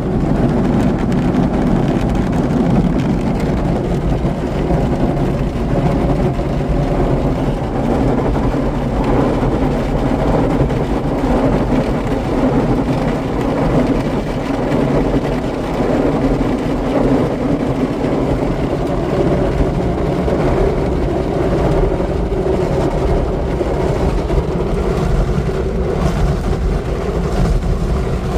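Broadway in-bay automatic car polisher running, its rotating brushes buffing over the car body, heard as a steady, loud machine noise from inside the car's cabin.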